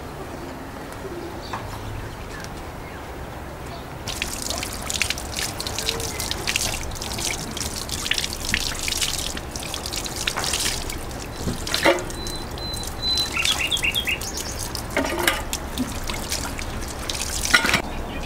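Water trickling and splashing in many short spurts from about four seconds in. A bird chirps briefly near the middle.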